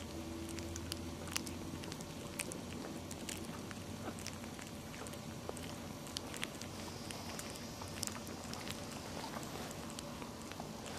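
Newborn Maltese puppies stirring: many small scattered clicks, rustles and faint squeaks over a low steady hum.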